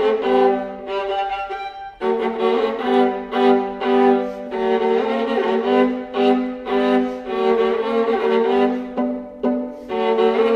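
Solo viola playing a run of quick, separately bowed notes, with a short break about two seconds in.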